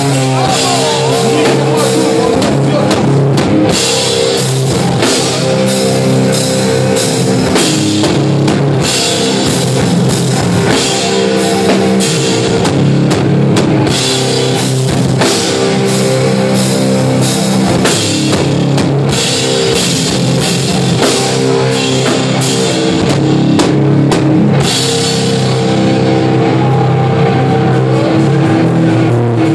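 Hardcore punk band playing live and loud: distorted electric guitars and bass chugging over fast drum-kit beats with crashing cymbals, heard from within the crowd. The drumming drops out near the end, leaving the guitars ringing.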